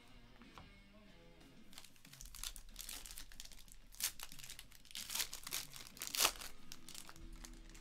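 Foil trading-card pack being torn open and crinkled: a run of sharp crackles starting about two seconds in, loudest near the end. Faint background music underneath.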